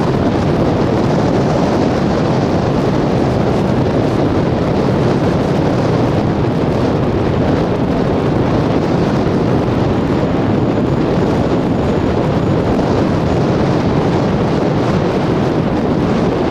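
Strong wind buffeting the camera microphone: a loud, steady, deep rumbling rush that goes on without a break.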